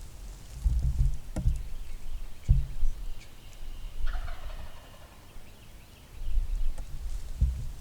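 A wild turkey tom gobbling once, about four seconds in. Heavier low rumbling thumps come before and after it.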